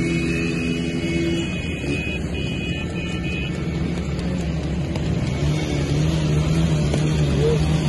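Several motorcycle engines running together as the bikes ride alongside a trotting horse.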